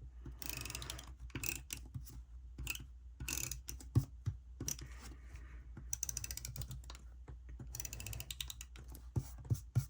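Marking out printed words on a paper planner page: a run of small ticking clicks and scratches, densest a little past the middle.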